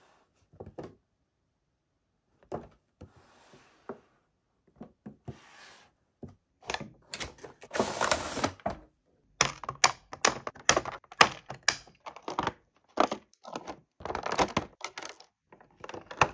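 Unboxing noise of a cardboard toy box and its clear plastic blister tray: soft rubbing and scraping as the tray slides out of the box, then a busy run of sharp plastic crackles and clicks from about six seconds in, loudest in the second half.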